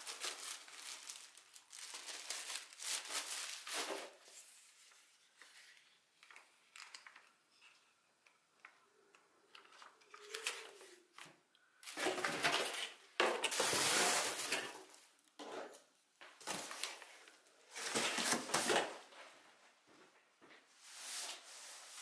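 Plastic packaging bag and paper instruction leaflets rustling and crinkling as they are handled and unpacked, in irregular bursts with quiet gaps, the longest and loudest a little past the middle.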